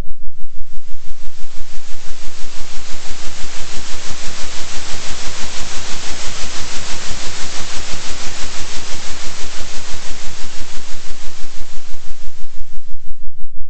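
Synthetic noise pulsing in loudness about three times a second, a 3 Hz oscillation, over a steady low hum. The hiss grows brighter toward the middle and thins out near the end.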